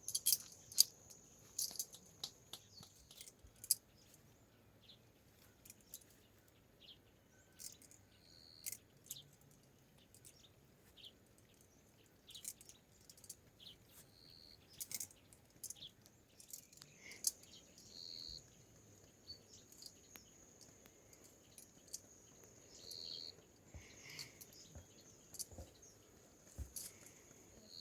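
Quiet outdoor ambience: insects, crickets by their sound, keep up a steady high-pitched drone, with scattered sharp clicks and knocks and a few short chirps.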